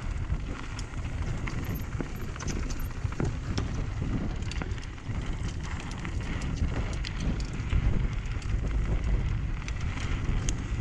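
Mountain bike riding over a rocky trail: wind rumbling on the bike-mounted microphone, with tyres rolling over loose rock and many small clicks and rattles from the bike.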